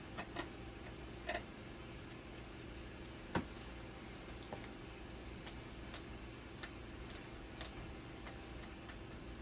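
Scattered light clicks and taps at irregular intervals, the sharpest about three and a half seconds in, as gloved hands work on the plastic front panel around a dialysis machine's blood pump, over a steady low hum.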